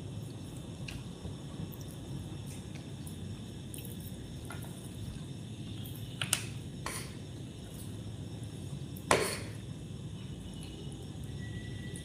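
Low steady hum, with a fork clinking against a dinner plate a few times; the loudest clink comes about nine seconds in.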